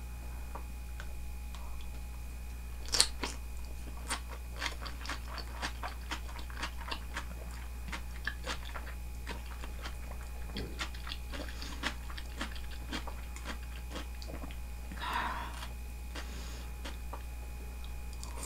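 Close-up chewing of raw horse-meat yukhoe with julienned cucumber. There is a sharp crunch about three seconds in, then regular crisp crunches about twice a second, and a short softer noise about fifteen seconds in. A steady low electrical hum lies underneath.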